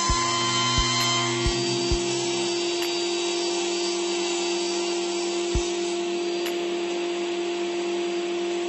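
Sliding table panel saw running steadily while a melamine-faced panel is pushed through the cut. A few dull knocks come in the first two seconds and one more about five and a half seconds in.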